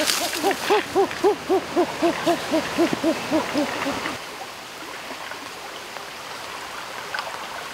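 A rapid series of low hooting calls, about four a second, that stops about four seconds in. After it comes the steady rush of running water.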